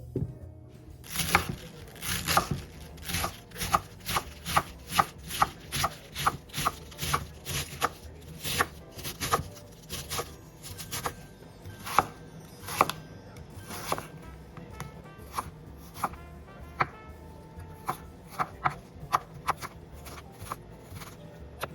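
Kitchen knife chopping on a cutting board, about two strokes a second in a steady rhythm.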